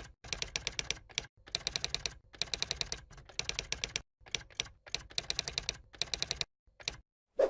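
Typewriter keys clacking in quick runs of about ten strikes a second, with short pauses between runs: a typing sound effect for text being typed out letter by letter. A single louder thump comes near the end.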